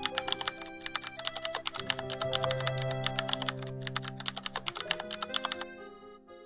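Rapid computer-keyboard typing clicks, a typing sound effect, over soft background music. The clicks stop shortly before the end, and the music then fades away.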